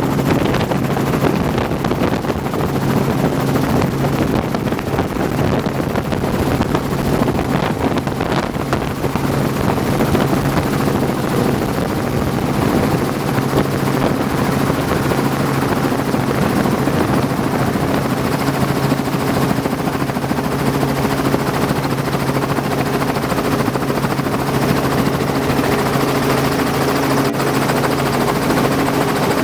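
Helicopter in flight: a loud, steady drone of rotor and turbine engine with a constant low hum.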